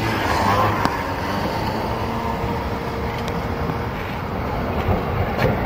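An articulated electric tram running past on street rails amid car traffic. There is a faint steady tone for a couple of seconds in the middle and a few light clicks.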